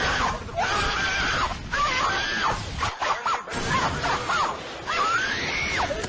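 A high-pitched voice wailing in a string of rising-and-falling cries over a steady noisy background.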